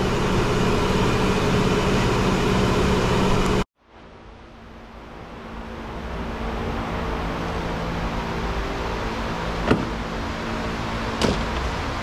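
Steady hum of a repair shop's background machinery, cut off abruptly a little under four seconds in and fading back up over the next couple of seconds. Two short sharp clicks come near the end.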